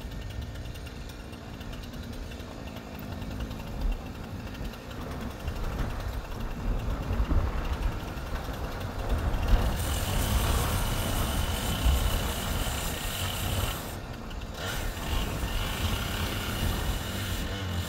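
A vehicle engine running with a steady low rumble; a broad hiss joins in about halfway through and briefly drops away near the end.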